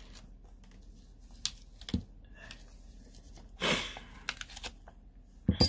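Light clicks and taps of silver bullion coins and clear plastic coin flips being handled and set down on a cloth-covered table, with a brief plastic rustle partway through and a sharper metallic clink near the end.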